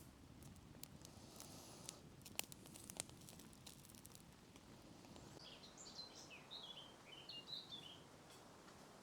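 Faint outdoor ambience: a few sharp clicks or snaps in the first three seconds, then a bird chirping a quick run of short calls from about the middle to near the end.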